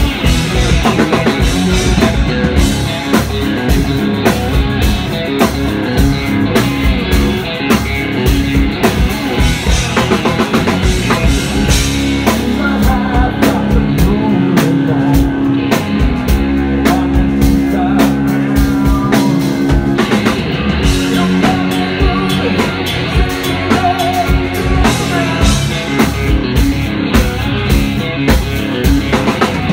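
Live rock band playing loud and without a break: drum kit, electric guitar and bass guitar.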